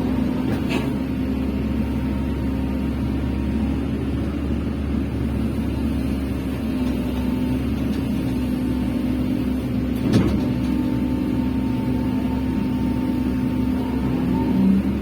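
Hydraulic excavator's diesel engine running steadily under work, with a sharp knock just under a second in and a louder one about ten seconds in.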